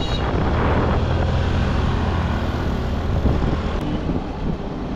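A vehicle on the move, heard as a steady low rumble of engine and road noise with wind buffeting the microphone.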